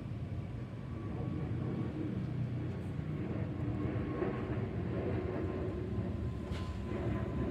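Airbus A320neo's CFM LEAP-1A turbofans heard in a flyover: a steady deep rumble with a thin whine that slides slowly down in pitch as the jet passes.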